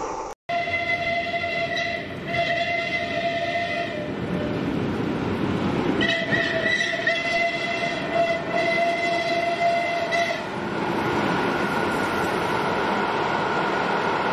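Steam locomotive whistle sounding on one steady pitch: two blasts in the first four seconds, then a longer blast of about four seconds. Underneath runs the steady rumble of the passing train and its coaches.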